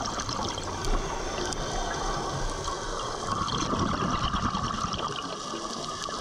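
Underwater water noise picked up by a diver's camera: a steady hiss with gurgling and faint clicks.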